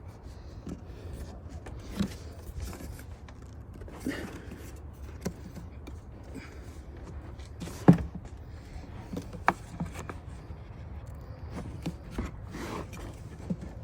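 Scattered clicks and knocks of hand tools and plastic parts as the mass airflow sensor is worked loose from the old air-intake box, with the sharpest knock about eight seconds in. A low steady hum runs underneath.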